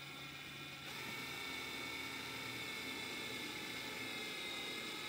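Compact cordless drill-driver running at low speed as it drives a screw, a steady whir with a faint high whine. It gets louder about a second in.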